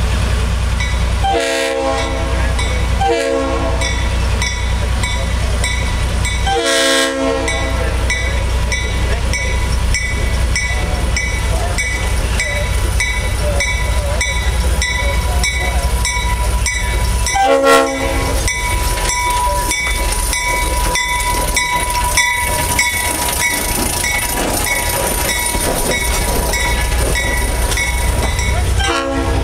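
Small diesel switcher locomotive USS #45 running as it brings a passenger coach in, sounding its horn in short blasts: two near the start, a longer one a few seconds later, one past the middle and one at the very end. A bell rings with a steady regular beat through most of it.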